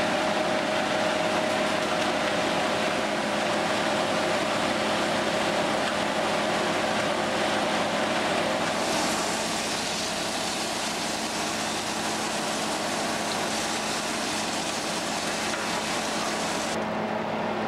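Diced mushrooms sizzling in hot olive oil in a frying pan, a steady hiss with a faint hum beneath it; the hiss drops away just before the end.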